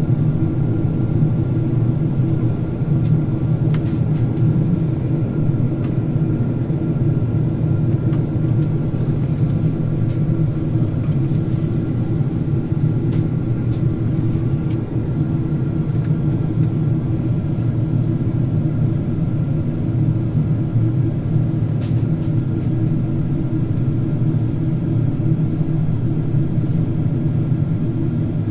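Steady cabin drone of a Boeing 767-400ER on descent: a low rumble of engine and airflow noise with a few thin steady tones above it and a few faint clicks.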